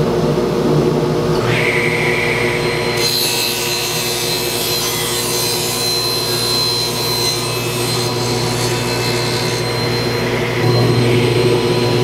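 Table saw running, its blade cutting through a plywood piece pushed through on a crosscut sled. The cut starts about three seconds in and lasts about six seconds, then the saw runs on without cutting.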